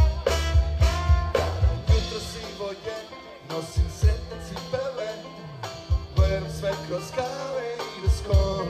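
Live swing-jazz band playing: trombone, upright bass, drum kit and guitar, with a voice singing. The band thins out and goes quieter in the middle, then the drums and bass come back in strongly about six seconds in.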